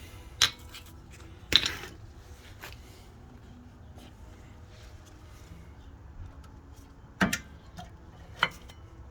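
A handful of sharp metallic clanks and clinks from tools and brake parts being handled during a rear brake pad job. The loudest clank comes about a second and a half in and rings briefly; two more come near the end.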